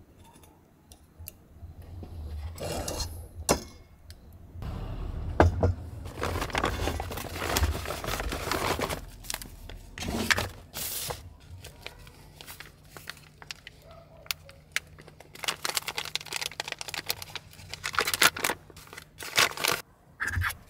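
Foil and paper packaging crinkling, rustling and tearing as coffee bags are opened and handled, in irregular bursts. A few light clicks come near the start, from the camping stove's push-button igniter.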